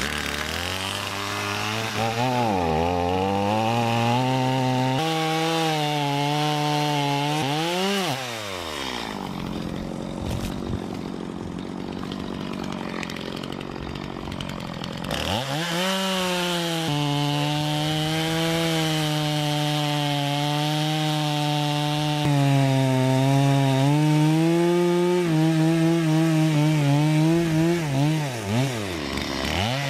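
Stihl MS 250 two-stroke chainsaw revving and cutting wood, its pitch sagging under load and climbing back several times. There is a quieter stretch of several seconds in the middle, then a long steady cut at full speed.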